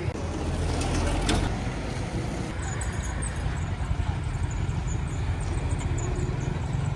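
Heavy diesel earthmoving machinery running steadily with a deep engine rumble, with faint short high squeaks in the second half.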